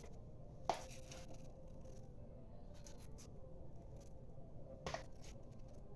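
Small plastic sauce containers being handled and packed, with two sharp clicks about four seconds apart over a faint steady hum.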